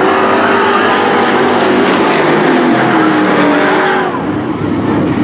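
Several street stock race cars' engines running hard as the pack races past on the dirt oval. The sound eases a little and an engine note falls near the end.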